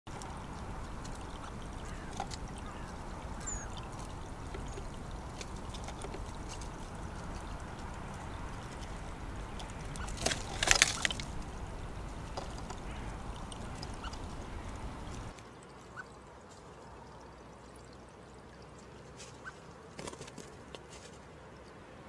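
Water trickling steadily from a stone bird bath's spout, with a short cluster of sharp clicks about halfway through. The level drops suddenly about two-thirds of the way in, leaving a quieter trickle with a few faint ticks.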